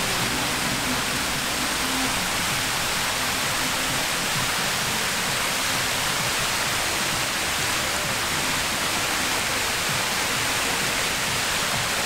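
Water cascading down the tiers of a stepped fountain into its basin: a steady, even rushing splash.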